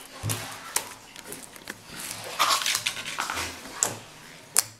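Clear slime being stretched by hand and dropped back onto a tabletop: wet, sticky clicks and squelches, thickest around the middle, with one sharp click near the end.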